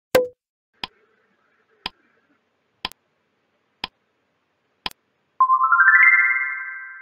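Quiz sound effects: a pop as an answer option appears, then five short ticks one second apart from a countdown timer. About five seconds in comes a quick rising run of synthesized chime notes that rings on and fades: the answer-reveal jingle.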